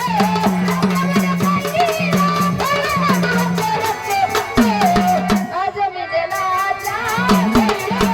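Marathi devotional folk music of a gondhal party: a hand drum beats a fast, even rhythm under a bending melody line, with rattling percussion on top. The drum drops out for about three seconds midway, then comes back near the end.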